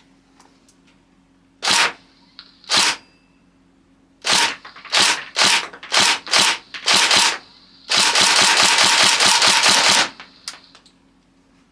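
Airsoft gun fitted with a smoke muzzle-flash silencer, firing: two single shots, then a quick string of about six shots, then a rapid full-auto burst lasting about two seconds.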